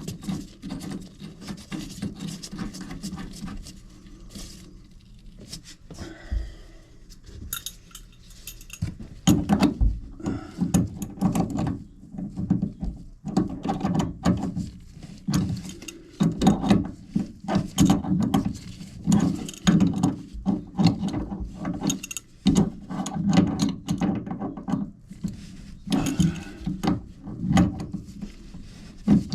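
Hands working with tools and small hard parts, giving repeated clicks, knocks and rattles. These are sparse at first and come thick and fast from about nine seconds in, over a steady low hum.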